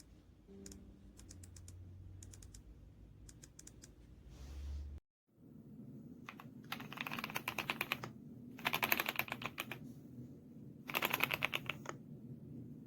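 Typing on a Royal Kludge S98 mechanical keyboard with pale green tactile switches and PBT keycaps. First come a few scattered keystrokes, then, after a brief break in the sound, three fast bursts of rapid typing.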